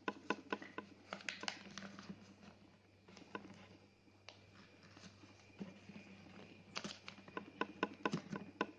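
A sheet of paper rustling and crackling as it is folded and handled by hand: clusters of small crackles, thinner for a couple of seconds in the middle.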